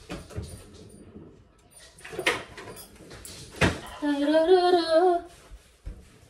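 Two sharp knocks, then a voice humming a short wavering tune for about a second near the end.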